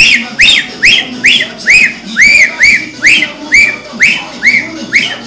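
A person whistling loudly in a rapid string of short piercing notes, about two a second, each note sliding up then down in pitch, with music playing faintly underneath.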